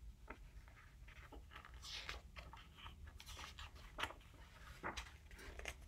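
Faint paper rustling and small scattered clicks from the pages of a hardcover picture book being handled, a page lifted at its top edge as if about to be turned.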